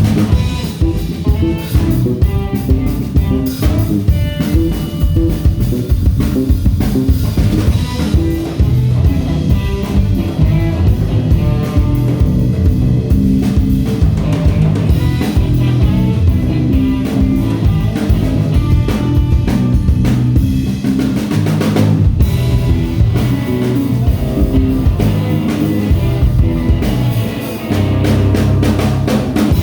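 Band music with a drum kit keeping a steady beat under guitar and bass.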